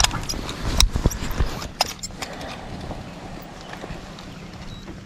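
Handling noises in a boat while a fish is weighed: a few sharp knocks and clicks in the first two seconds, then a steady low background hum.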